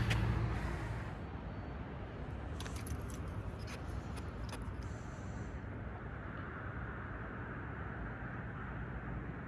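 Steady low outdoor background noise, with a few light clicks between about three and five seconds in.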